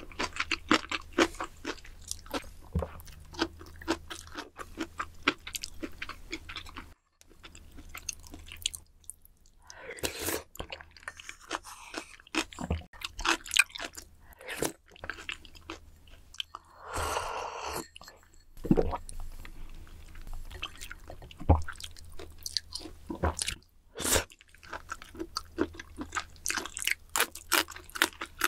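Close-miked chewing and crunching of food: dense, sharp, irregular mouth clicks, with two longer, smeared slurping sounds about ten and seventeen seconds in as broth is taken from a spoon.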